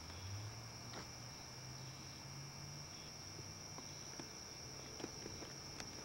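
Crickets trilling steadily on one unbroken high note, over a low hum, with a few faint footsteps on a path.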